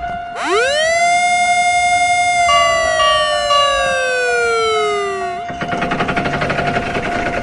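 Synthesized siren-like cartoon sound effect: a buzzy tone sweeps up quickly about half a second in, holds for about two seconds, then slides slowly down and cuts off suddenly after about five seconds. Beneath it runs a steady electronic tone, with a fast rattling clatter before and after the sweep.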